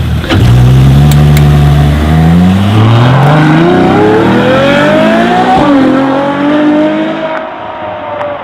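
Supercar engine launching hard and accelerating, its pitch climbing through the gears with a couple of quick upshifts, then fading as the car pulls away.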